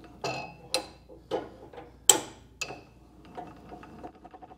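The crank hand wheel of a Hammer A3-41 jointer-planer being turned to raise the planer bed. Several separate clicks and knocks come first, the loudest about two seconds in. From about three seconds in there is a fast, even ticking as the wheel is cranked steadily.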